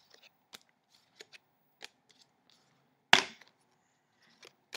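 Hockey trading cards being flipped through by hand, one after another: a string of short flicks and slides of card stock, with one sharp snap about three seconds in.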